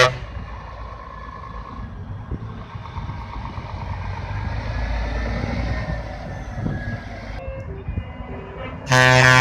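Scania R-series Streamline tipper truck's diesel engine running as it drives slowly past, the rumble swelling as it comes closest. Near the end a truck air horn starts a long, loud blast.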